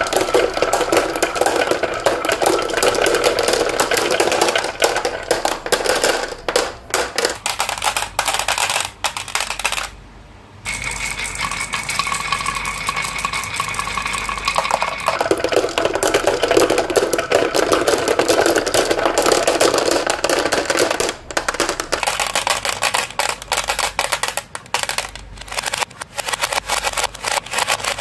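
Many marbles rolling and clattering down a marble run track, a dense, continuous rattle of clicks with a ringing hum from the rolling. The clatter breaks off briefly about ten seconds in, then resumes and changes pitch as the marbles move onto other sections of track.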